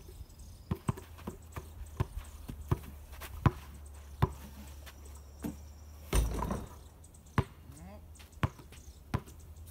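Basketball being bounced as it is dribbled, a thud every half second to a second, with a louder, longer burst about six seconds in.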